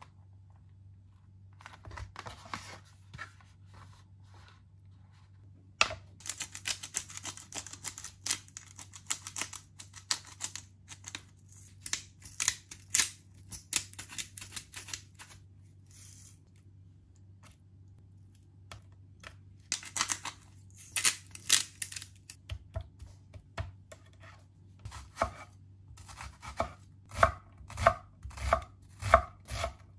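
Food preparation sounds. First there are grating bursts from a hand-turned pepper grinder cranked over raw chicken thighs. Near the end a chef's knife chops an onion on an end-grain wooden cutting board in quick, even strokes of about three a second, each a sharp knock with a dull thump. A steady low hum runs underneath.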